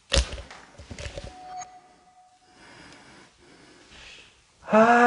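A sudden loud knock with a brief rattle right at the start, then near the end a drawn-out voiced sound from a person, held on one pitch for about half a second.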